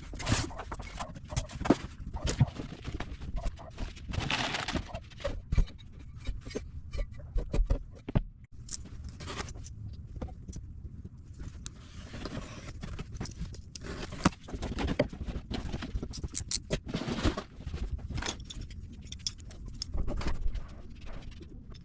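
Irregular knocks, clicks and scrapes of winch-kit parts and packaging being handled and unpacked.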